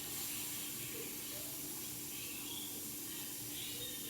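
Fish frying in hot oil on the stove, a steady sizzle, with a faint steady low hum underneath.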